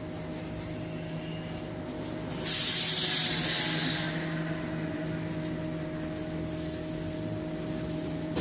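Scania K270 trolleybus running with a steady electric hum. About two and a half seconds in, a loud burst of compressed-air hiss breaks in suddenly and fades out over about a second and a half.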